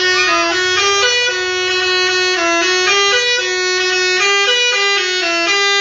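Basuri musical air horn on a bus playing a tune: a run of held notes stepping up and down, about two notes a second.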